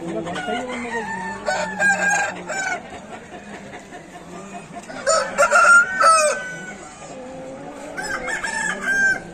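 Aseel roosters crowing, three crows in turn, the loudest about five seconds in, with lower clucking calls between them.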